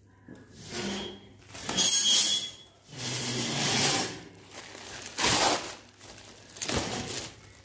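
Clear plastic wrapping crinkling and rustling as it is pulled off an iron wire plant stand, in several bursts, the loudest about two seconds in.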